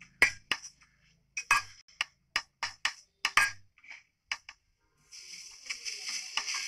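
Plastic spatula stirring grated pumpkin in a non-stick frying pan, knocking and scraping against the pan in irregular strokes. A steady hiss starts about five seconds in.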